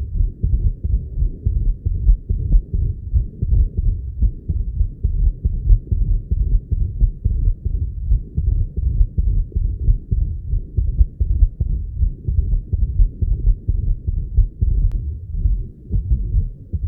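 Heart sounds of a patient with atrial fibrillation and a double mitral lesion (combined mitral stenosis and regurgitation): an irregular run of low heartbeats with a murmur. A faint click comes near the end.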